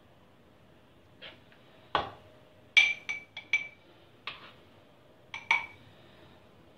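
A spoon clinking against a small glass jar and the rim of a pan as thick pepper paste is scooped and pushed into the jar: about nine sharp, irregular clinks, several of them ringing briefly like glass, the loudest a little under three seconds in.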